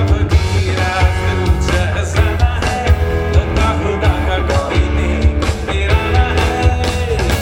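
A live band playing a Hindi pop-rock song loudly over a concert sound system, with a steady drum beat, heavy bass and guitars.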